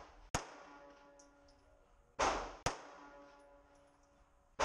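Gunshots from a compact .380 ACP pistol fired slow and steady, about two seconds apart, each a sharp crack followed by a short ringing tail.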